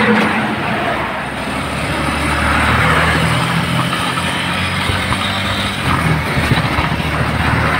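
Motorcycle-and-sidecar tricycle riding along a paved road: its engine runs with a steady low note under continuous rushing wind and road noise.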